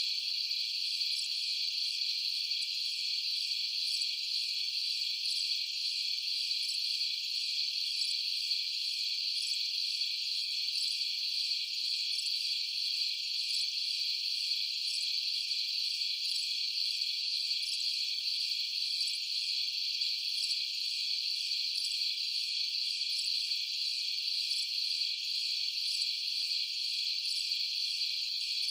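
A steady chorus of night insects, crickets most likely, chirping continuously in a dense, even high-pitched band.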